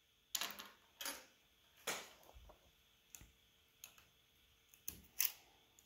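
Scattered light clicks and taps, about eight, from fingers and a small tool handling the opened phone's flex cables and charging-port board.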